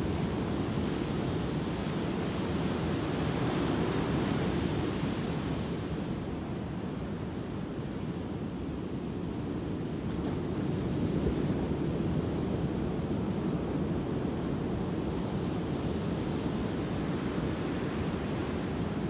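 Ocean surf breaking on a sandy beach: a steady wash of rushing water that swells and eases every several seconds as waves break and run up the shore.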